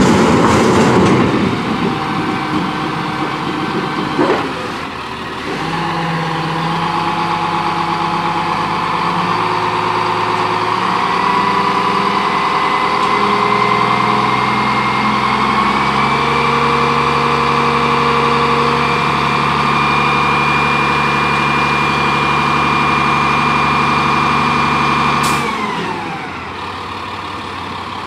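1999 Crane Carrier garbage truck's diesel engine running at raised revs that step up in pitch, with a high whine slowly climbing over it. Near the end it drops back to idle with a falling whine. A knock about four seconds in.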